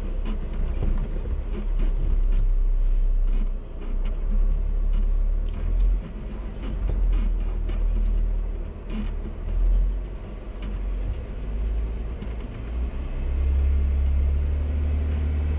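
Jeep Wrangler crawling through mud and puddles on a rutted forest track, heard from inside the cabin: a low engine and drivetrain rumble that rises and falls, with scattered knocks and rattles as it bumps through the ruts. The engine rumble swells near the end.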